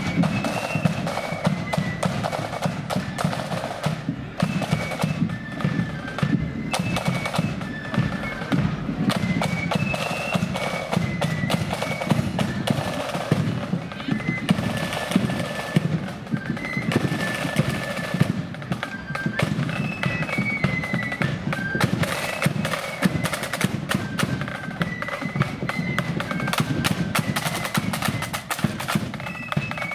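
Marching flute band in the blood-and-thunder style playing a tune: flutes carry the melody over rapid, continuous snare drumming and a bass drum beat.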